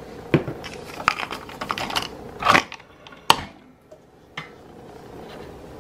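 Keurig K-Café single-serve coffee maker being handled: a string of plastic clicks and knocks as the K-cup pod is seated and the brewer's lid is pressed shut, with the sharpest snap about three seconds in.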